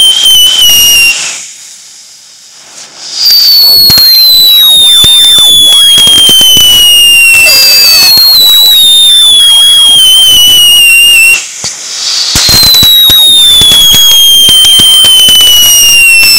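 Ground firework fountain whistling: a loud, high whistle that slides down in pitch over several seconds, breaking off and starting again high four times, over a crackle of sparks. The whistle cuts out briefly about a second in and again after eleven seconds.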